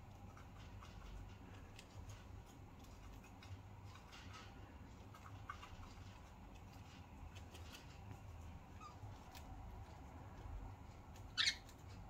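Budgerigar husking seed at a cage feeder: faint, scattered small clicks. Near the end comes one short, much louder budgie chirp.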